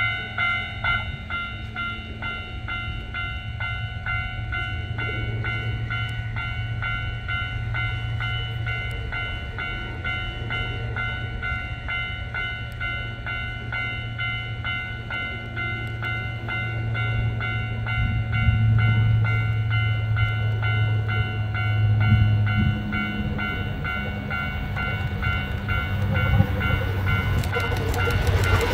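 A railway level-crossing alarm keeps up a steady, fast, repeating electronic ding. Under it a Hankyu 8000 series electric train's rumble grows as it approaches, and the train passes close near the end.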